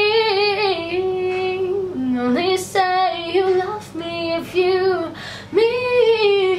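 A woman singing a slow song without accompaniment. She holds long notes that slide between pitches, with quick breaths between phrases.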